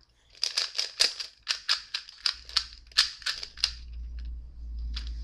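Rubik's cubes being turned fast in a speedsolve, on the last-layer moves: a rapid run of sharp plastic clicks and snaps, pausing for about a second near the end of it before the clicking starts again.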